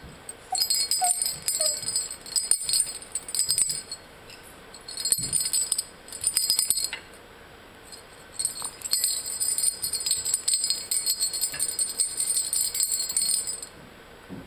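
A jingle-bell toy being shaken in three spells, the longest near the end, with bright high jingling and brief gaps between.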